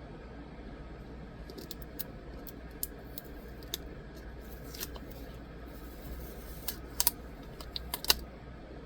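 Scattered small plastic clicks and taps from a phone and screen-protector parts being handled, a quick cluster of louder ones near the end, over a low steady hum.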